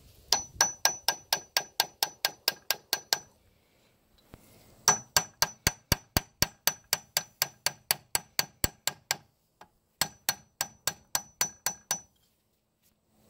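Hammer blows on the steel gland end of a Woods BK-7500 backhoe boom hydraulic cylinder held in a vise, to work the gland loose. Each blow is a sharp metallic strike with a ringing tone. They come in three quick runs of steady strikes, about four a second, with short pauses between the runs.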